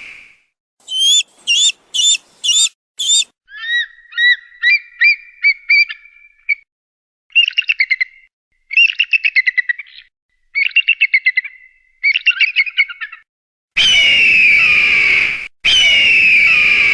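Eagle calls in a row: five short, separate calls, then several bursts of rapid, high-pitched chattering, then two long, loud screams near the end.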